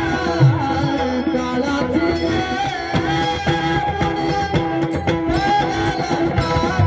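Marathi devotional singing: a high male voice holding long, bending notes, accompanied by mridang drum strokes and a regular light clicking beat, the drum coming in stronger near the end.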